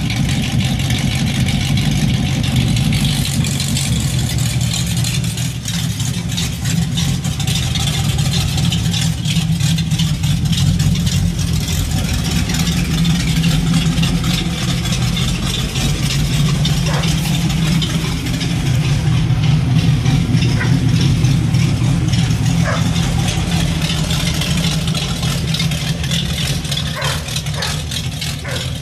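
Fox-body Ford Mustang 5.0 V8 idling roughly and loudly through an off-road H-pipe with no mufflers. The uneven idle comes with the engine running really rich.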